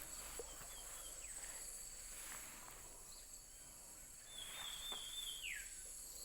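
Faint outdoor ambience of insects trilling steadily at a high pitch. About four seconds in, a short high call holds level briefly and then slides downward.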